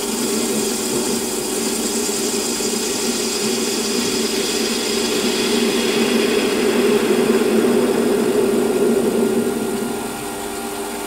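Metal lathe running steadily while a facing tool takes a light cut, about six thou deep, across the end of a small model-engine cylinder cap. The lathe's steady whine carries a hissing cutting noise that grows louder past the middle and eases off near the end.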